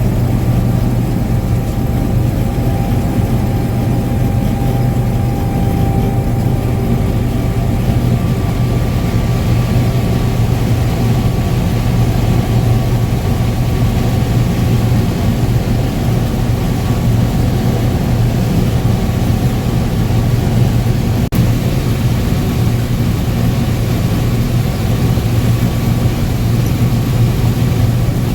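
Combine harvester running steadily while harvesting corn: a constant low engine and machinery hum with a few steady whining tones from the threshing and drive parts. A single brief tick sounds about two-thirds of the way through.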